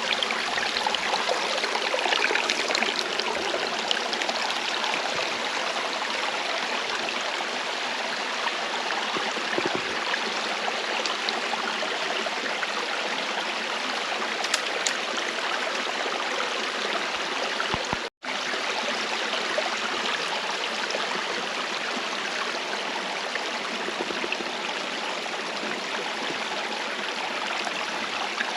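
Running water from a stream or waterfall, rushing steadily, cut off for a split second about two-thirds of the way through.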